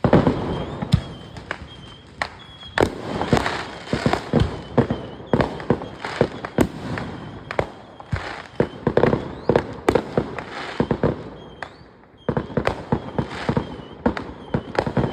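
Fireworks going off: a rapid, irregular run of bangs and crackles that starts suddenly, eases off about eleven seconds in and picks up again a second later.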